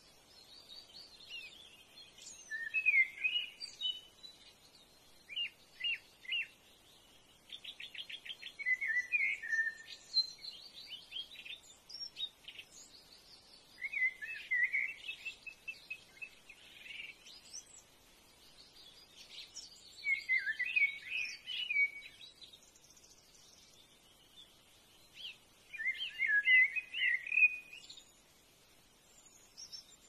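Wild birds calling and singing: a burst of chirps and warbled phrases every few seconds, with a fast rattling trill about eight seconds in.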